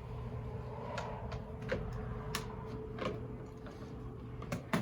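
Scattered light clicks and knocks from hands working on a car headlight assembly's plastic parts, over a faint steady hum.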